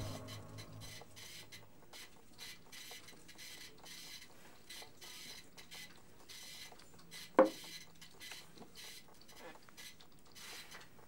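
Quiet office room tone with faint, irregular clicks and one sharp knock about seven seconds in.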